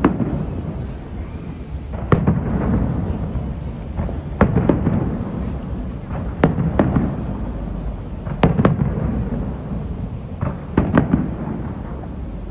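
Aerial fireworks shells bursting about every two seconds, with a quick double burst near the end. Each sharp bang is followed by a low rolling rumble.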